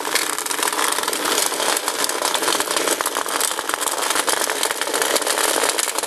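Several slot cars running laps together on a plastic track: a steady, dense rattle and whir of their small electric motors, wheels and pickups on the track, with many fine clicks.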